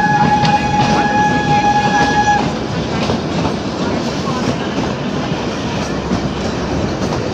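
Train horn sounding one steady blast of about two and a half seconds, then stopping, over the continuous rumble and rattle of the narrow-gauge toy train's coaches running on the track.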